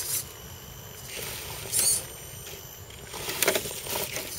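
RC scale crawler truck driving in short bursts, its tyres scrabbling and scraping on a dirt bank, once about halfway through and again near the end.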